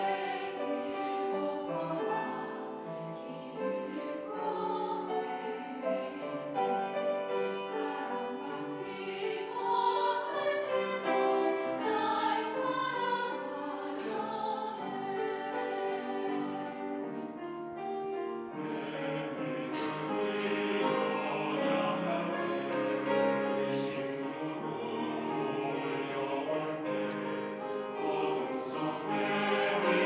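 Mixed church choir of women's and men's voices singing a sacred anthem in held, flowing lines, growing fuller and louder about two-thirds of the way through.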